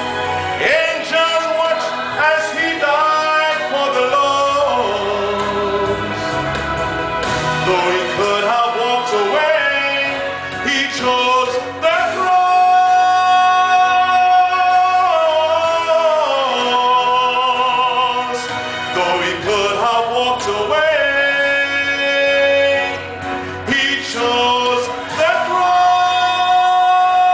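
A man singing a gospel solo in full voice, with long held notes that waver in vibrato.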